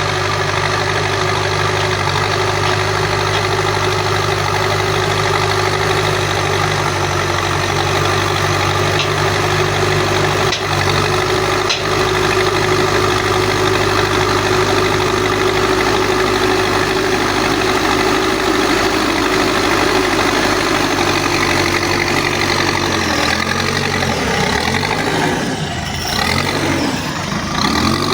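Terex TLB 844S backhoe loader's diesel engine idling steadily. Near the end its note rises and falls repeatedly as the engine is worked.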